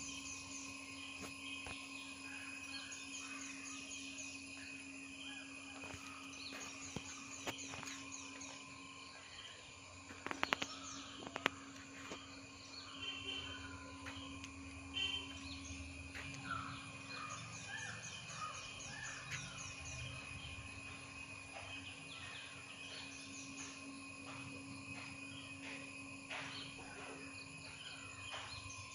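Outdoor garden ambience with birds chirping in short repeated series over a steady faint hum. A few sharp clicks come about ten to eleven seconds in.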